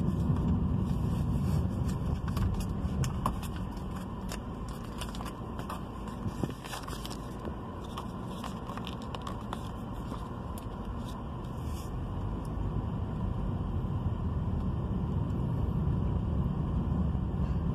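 Car interior while driving slowly: steady engine and tyre rumble from the road, with scattered clicks and crackles through the first dozen seconds that thin out later.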